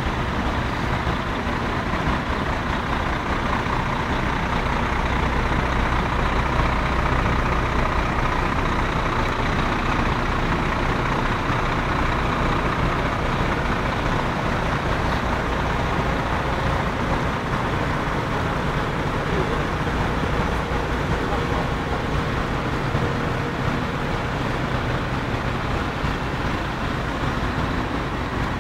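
Diesel lorry engines running together, a steady, even rumble with no revving or sudden sounds.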